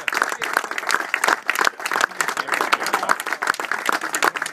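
Small crowd applauding: many hands clapping at once, dense and irregular.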